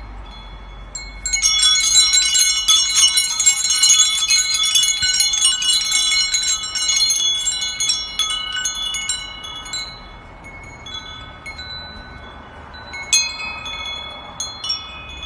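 Metal chimes struck over and over, a dense tinkling of ringing tones that starts about a second in and thins out after about nine seconds, with another cluster of strikes near the end.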